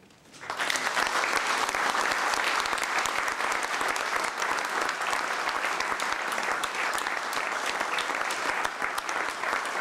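Audience applauding: many people clapping, breaking out about half a second in and holding steady.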